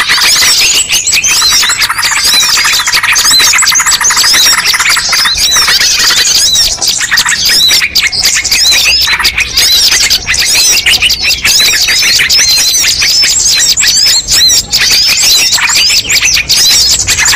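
Many small songbirds calling at once, a dense, continuous mix of chirps, whistles and squeaky notes, with a fast trill of repeated lower notes in the first few seconds. It is a mixed-species bird-lure recording, the calls of many kinds of birds layered together to draw birds in.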